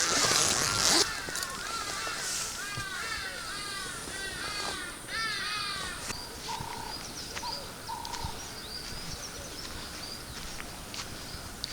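Birds calling: a quick run of repeated arched calls, several a second, for about the first five seconds, then scattered shorter chirps and whistles. A short burst of hiss-like noise in the first second.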